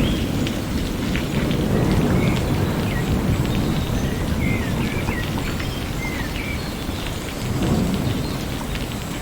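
Steady rain with low rolling thunder, the rumble swelling again near the end. A few short high chirps sound over the rain.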